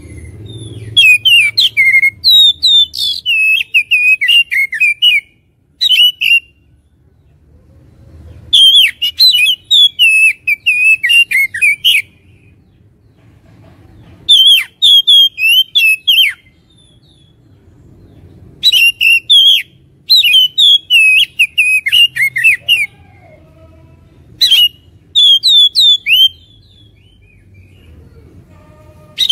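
Oriental magpie-robin (kacer) singing loud phrases of rapid, varied whistled notes. The phrases last one to four seconds and are separated by gaps of a second or two. This is the challenging song used as a lure to provoke another male kacer into singing and fighting.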